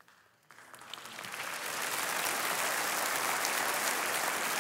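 A large congregation applauding. The clapping starts about half a second in and swells to a steady level within a couple of seconds.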